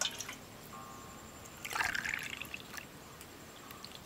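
A short trickle of liquid about two seconds in: a jaggery-and-milk mixture poured from a small steel ladle into a plastic ice-candy mould.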